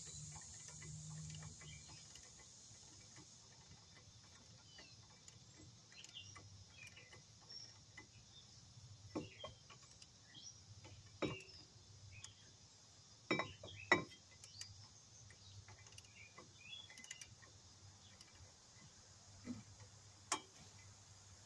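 Scattered metallic clicks and clinks of tools and parts being handled during a wheel hub replacement, with a few louder knocks about nine, eleven, fourteen and twenty seconds in.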